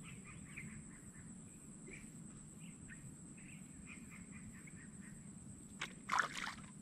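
Small birds chirping now and then over a quiet swamp, with a steady thin high-pitched whine underneath. About six seconds in comes a brief louder rustle and knock.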